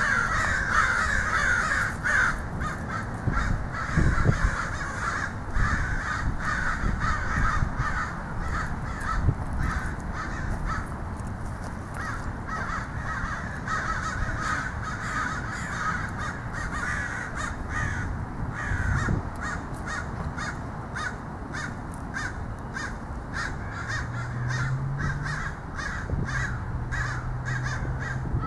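A large flock of crows cawing without a break, many calls overlapping. A low steady hum comes in near the end.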